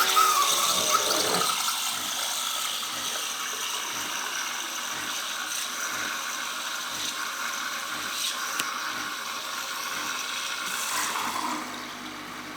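Siemens EQ7 bean-to-cup coffee machine running through its latte cycle: a steady mechanical whir and hiss, louder in the first couple of seconds, easing slightly near the end.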